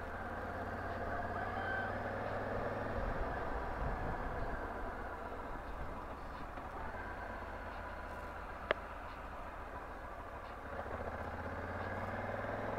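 Honda Africa Twin motorcycle's parallel-twin engine running while riding, with road and wind noise; the engine note shifts a few seconds in and again near the end. A single sharp click comes about two-thirds of the way through.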